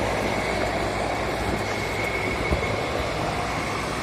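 Steady machinery drone with a low hum and a faint high whine, with one small knock about two and a half seconds in.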